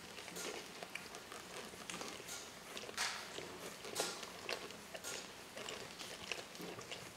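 Ten-day-old puppies suckling at their mother, with irregular smacking and clicking sounds from nursing and from the mother dog licking them; a couple of louder smacks about three and four seconds in.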